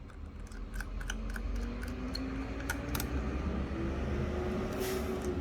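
Small metallic clicks and taps of a precision screwdriver against the iPhone XR's frame while the last two bottom screws are driven in, over a low hum that slowly rises in pitch.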